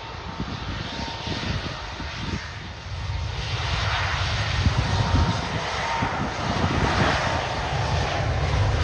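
Airbus A220-300's Pratt & Whitney PW1500G geared turbofan engines at takeoff power during the takeoff roll, a steady jet rush with a faint whine. It grows louder from about three and a half seconds in as the airliner comes closer.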